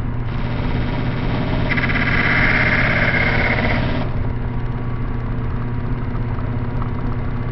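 Disc sander's motor running steadily. From about two seconds in to about four seconds, a steel drill bit held in a wooden jig is ground against the spinning sanding disc, a harsh grinding hiss as its tip is sharpened; then the sander runs on alone.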